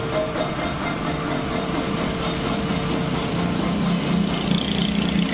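Milling machine with a vibrating bed running, a steady mechanical drone. A lower hum grows louder from about two seconds in.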